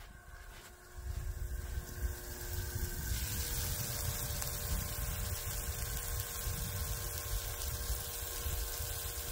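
Chicken sizzling on a portable grill: a steady hiss that grows louder about three seconds in.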